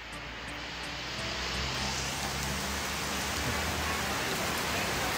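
Heavy rain pouring down, a dense steady hiss that swells over the first couple of seconds and then holds, with a faint low hum underneath.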